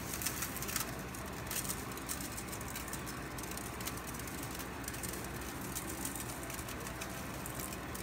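Seasoning shaker bottle shaken over raw pork ribs in a stainless steel sink, its granules giving irregular light ticks over a steady low background hum.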